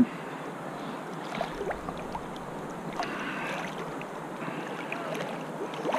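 Steady rush of fast-moving river water.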